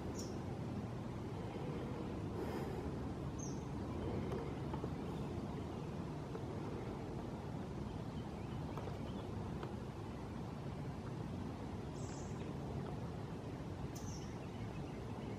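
Steady low outdoor rumble of wind on the microphone, with four brief high chirps spread through it.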